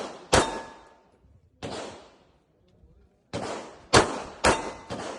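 Six gunshots at irregular intervals, each with a short echoing tail, several followed by a brief metallic ring.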